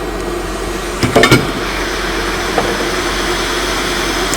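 Steady whir of a fan running, with a quick cluster of sharp clicks about a second in.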